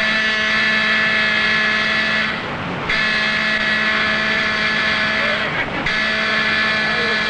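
Ship's warning siren sounding three long, steady blasts with short breaks between them, a collision warning as the frigate and gunboat close on each other. Rushing sea wash runs underneath.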